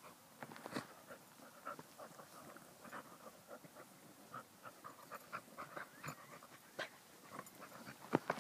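Dogs panting in quick, uneven breaths, with short rustling sounds in between; two sharp clicks near the end.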